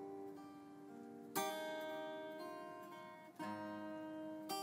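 Background music of gentle plucked acoustic-guitar chords, each left to ring and fade, a new chord every second or two.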